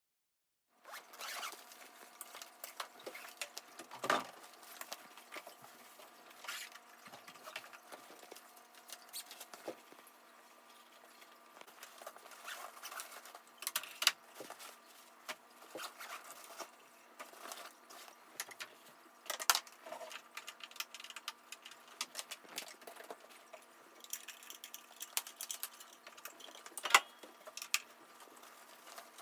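A fabric sewing machine carrying bag being handled: rustling, zipper runs and scattered small clicks, with several sharper knocks spread through.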